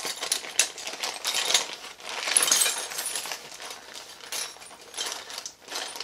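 Small metal pieces clicking and rattling in a small plastic box of lock shims as it is handled and searched, with a thicker rattle about two seconds in.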